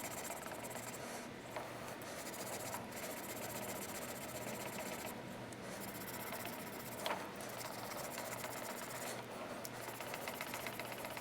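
Scotch-Brite pad buffing the face of a pipe flange, heard faintly over the steady running of a Precision Matthews lathe with a light rattle, and a small tick about seven seconds in.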